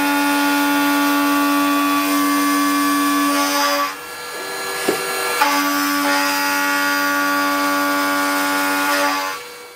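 Square-shoulder milling cutter with indexable inserts side-milling Ck45 carbon steel: a loud, steady, high-pitched whine made of several pitches at once. It drops off about four seconds in and starts again about a second and a half later, then fades just before the end.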